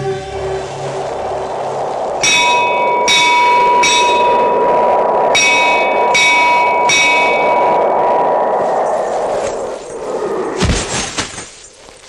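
Temple bell struck six times, in two groups of three, over a steady held tone and a rushing hiss, as a film soundtrack effect. A single sharp knock comes near the end, then the sound falls away.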